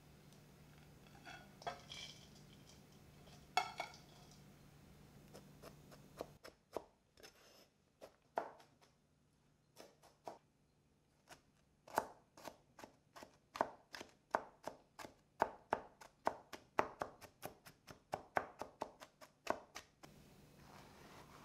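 Cauliflower being chopped with a knife on a cutting board into rice-sized crumbs. A run of quick, sharp strikes, about two to three a second, starts about six seconds in, after a few softer scattered sounds.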